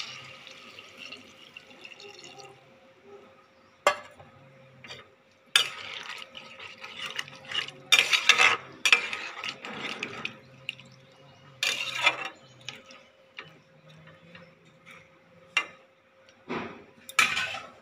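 Coconut milk poured into a pan of frying potatoes, pointed gourd and prawns, the sizzle fading away within the first two seconds. Then a spatula stirs the liquid curry, with irregular scrapes and knocks against the metal pan, the loudest about eight seconds in.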